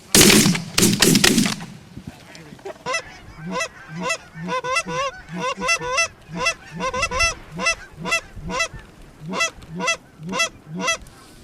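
Shotgun blasts in a quick volley of two or three, followed by a long run of goose honks, a few every second, with the pitch cracking on each call.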